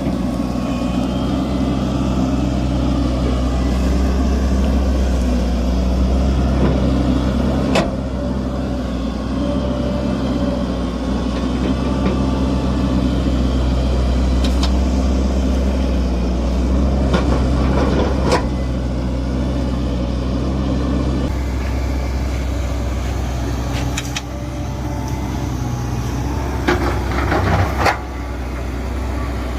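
Hitachi excavator's diesel engine running steadily, its note shifting about two-thirds of the way through, with a handful of sharp knocks and clanks from the machine at work.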